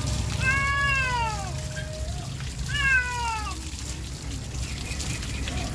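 Wet cat meowing twice in protest while being rinsed, two drawn-out meows that rise and then fall in pitch. Water from a hose sprayer hisses steadily over the fur underneath.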